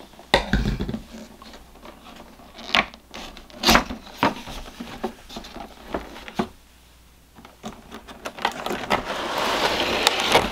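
Packaging being handled: a few sharp knocks and scrapes of cardboard, then a clear plastic bag crinkling and rustling, louder over the last two seconds.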